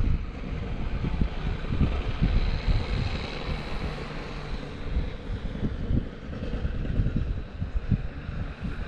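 Wind buffeting the microphone: a gusty, uneven low rumble.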